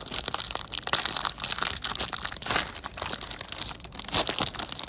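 Candy bar wrapper crinkling and tearing as it is opened by hand, a dense run of crackles.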